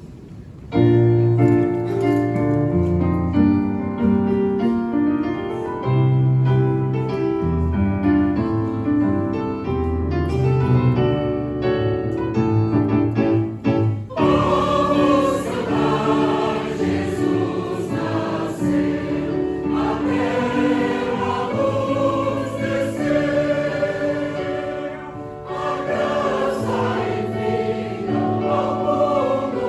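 A church choir singing a medley of traditional Christmas carols with keyboard accompaniment. The keyboard starts alone, with sustained chords, just under a second in; the choir's voices come in about halfway through.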